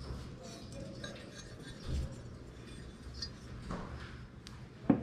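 Ceramic figurines clinking lightly against each other and the table as they are picked up and set down, with a sharp knock near the end.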